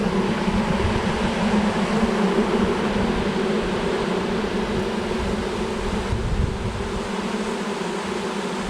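Honey bee swarm buzzing around a hive box: a steady, dense hum of many bees in flight as the swarm moves into the hive.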